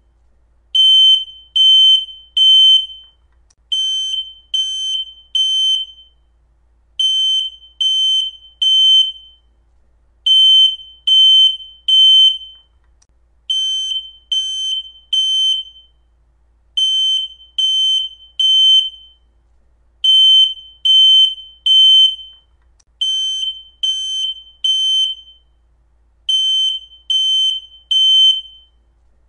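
Smoke detector sounding its full alarm: loud, high-pitched beeps in groups of three, each group followed by a short pause and repeating steadily. This is the standard temporal-three evacuation pattern, not a low-battery chirp.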